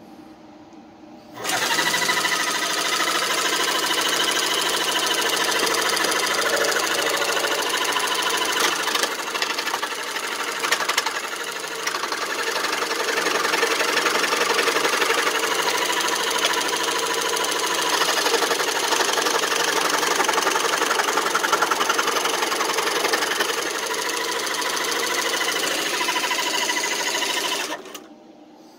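A homemade scroll saw starts about a second in, runs steadily with its reciprocating blade cutting a thin piece of wood, and stops abruptly near the end.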